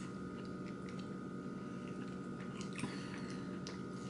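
People chewing food close to the microphone, with faint small wet clicks and smacks. A steady low hum runs underneath.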